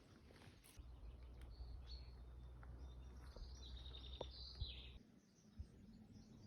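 Faint bird chirps and a short trill over a low steady rumble; the rumble and the calls stop about five seconds in.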